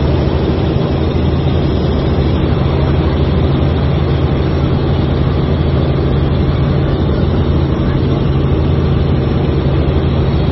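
Helicopter in flight heard from inside the cabin: a loud, steady drone of engine and rotors with a low hum that does not change.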